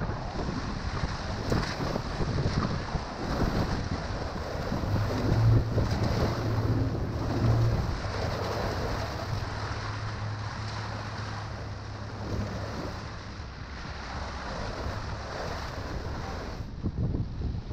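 Wind buffeting the microphone over rushing river water slapping and splashing against the raft's inflatable pontoons as it runs a small rapid. A low steady hum rises through the middle, about five to twelve seconds in.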